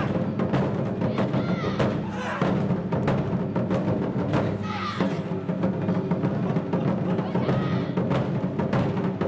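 Japanese taiko drums played live by an ensemble, struck in a fast, dense rhythm over a sustained low sound, with a wavering higher-pitched line heard now and then.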